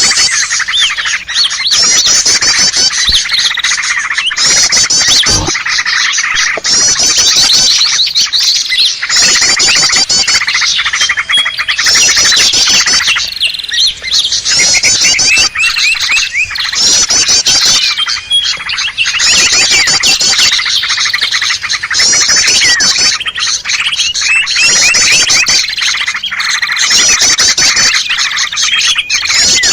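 Mixed bird-lure recording of small songbirds calling loudly and without pause: dense harsh chattering, with a high buzzy trill repeating about every two seconds. The calls are those of small Indonesian birds such as prinias and bulbuls, played to draw wild birds in.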